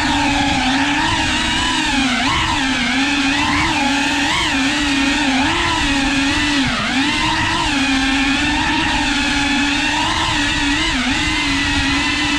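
FPV quadcopter's electric motors and propellers whining in a steady buzz, the pitch repeatedly dipping and rising as the throttle is worked through tight indoor flying.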